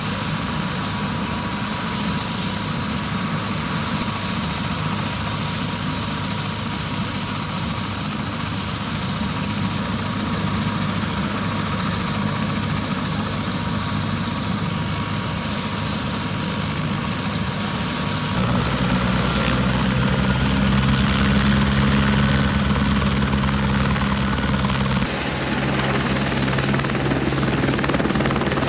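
Airbus AS350 Squirrel helicopter running on the ground at idle, with a steady turbine whine over rotor noise. About two-thirds of the way in it is brought up to flight speed: the whine jumps higher and the rotor's low beat grows louder. The whine climbs again near the end, as the helicopter readies to lift off.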